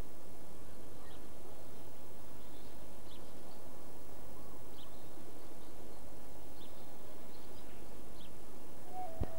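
Outdoor wheat-field ambience: a steady low background noise with faint, short high chirps every second or two. A held musical tone and a click come in at the very end.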